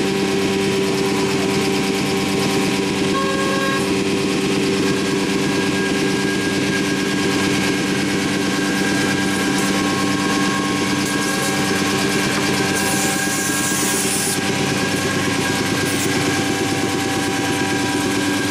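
Anderson Stratos Pro CNC router running steadily while its drilling head bores dowel holes in the wood, a machine hum with several steady tones. A short burst of high hiss comes about two-thirds of the way through.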